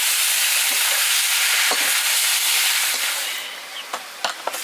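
Chicken meat sizzling as it fries in a wok. The sizzle stops abruptly about three seconds in, and a few light knocks follow.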